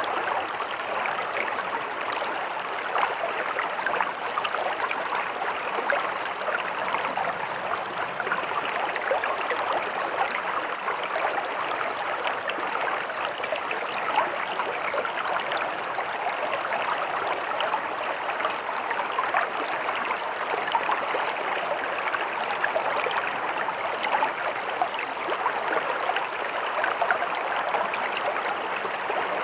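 Running water of a stream, flowing and burbling steadily over stones.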